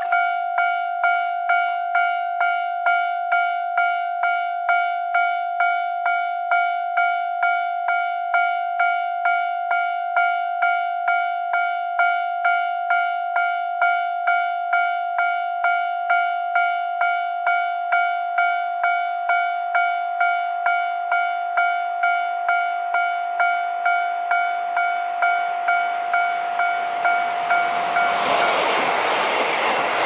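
Japanese level-crossing warning bell ringing, one pitched electronic ding repeating about 1.7 times a second. A JR Hokkaido limited-express diesel train approaches, its noise rising over the last several seconds, then runs through the crossing with a loud rush of wheels on rail that drowns out the bell.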